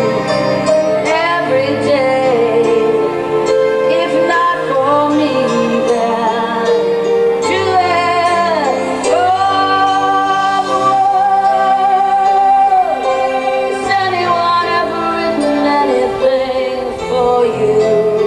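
A live band plays a slow rock ballad, with sustained chords under a lead melody line. About nine seconds in, the melody swoops down and then holds one long, wavering note.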